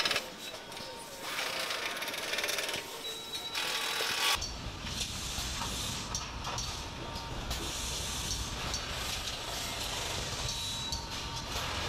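Air-powered nut runner whirring in two short bursts as it tightens bolts on a car's front strut assembly. About four seconds in, it gives way to steady assembly-line noise with a low rumble.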